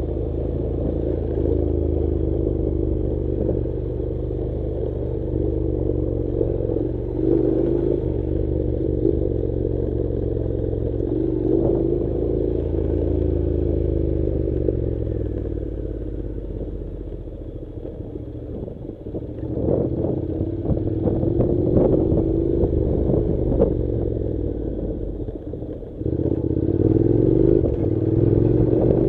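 Honda NC-series motorcycle's parallel-twin engine running at low revs on a gravel track, its pitch rising and falling with the throttle, with clatter and knocks from the bike over the rough surface. The engine eases off past halfway and picks up again sharply near the end.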